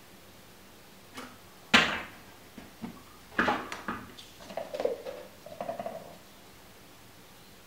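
Plastic fork-oil bottle and measuring syringe being handled while oil is measured out. There is one sharp knock about two seconds in, then a run of clicks and short squeaky rubbing sounds in the middle.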